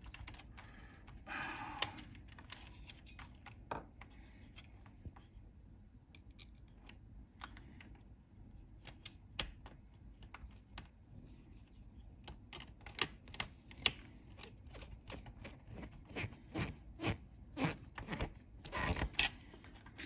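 Scattered light clicks, taps and scrapes of wires being pushed into place and a screwdriver working inside an Amstrad CPC464's plastic case, sparse at first and coming thicker in the second half.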